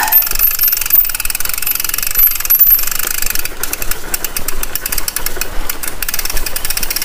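Mountain bike rolling downhill over a rough dirt track, rattling and clattering continuously over the bumps as its tyres crunch on the loose soil.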